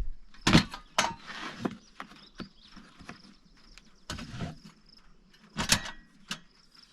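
Knocks and clatter of camp cooking gear being handled and set down, a few sharper bumps among lighter clicks, with faint insects chirping steadily behind.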